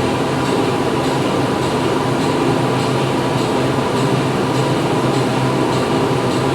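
Factory machinery running steadily: a dense mechanical din with a strong low hum and several steady tones, and a faint high tick repeating at an even pace, a little under twice a second.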